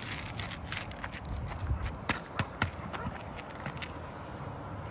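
Irregular sharp clicks and scrapes of an asphalt shingle being lifted and its nails worked out, the wind-damaged shingle tearing as it comes loose.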